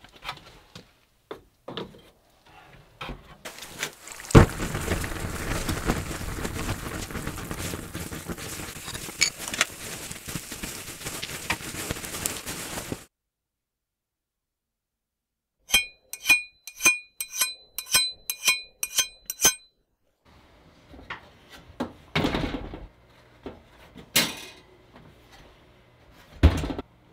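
A dense crackling hiss for about nine seconds. After a pause, about ten short ringing metal scrapes, a hardness-testing file being drawn across the hardened steel of the axe head. Near the end, two heavy thunks as a kitchen oven door is handled for tempering.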